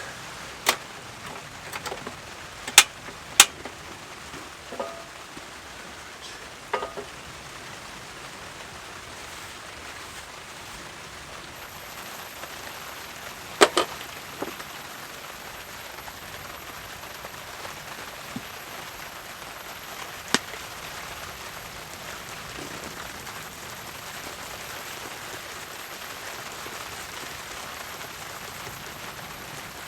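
Steady rain falling on a tarp shelter, an even hiss, with a few sharp clicks and knocks from cooking gear being handled, the loudest about 3 and 14 seconds in.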